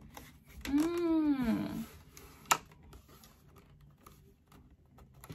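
A woman's voice makes one drawn-out wordless vocal sound about a second in, its pitch rising then falling. A single sharp click follows a second or so later, with faint small clicks around it.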